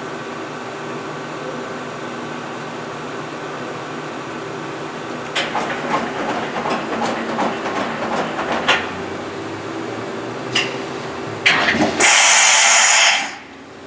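DMG Mori Dura Vertical 635 Eco vertical machining center humming steadily while its automatic tool changer cycles: a few seconds of mechanical clicking and clatter, a couple of sharp clacks, then a loud hiss lasting about a second that cuts off suddenly.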